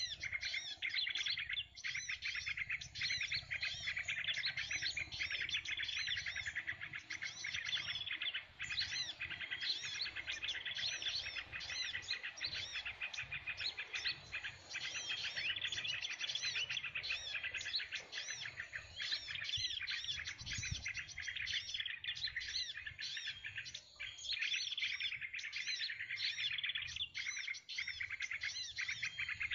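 Small birds chirping constantly, with dense, rapid, overlapping chirps and twitters that never let up.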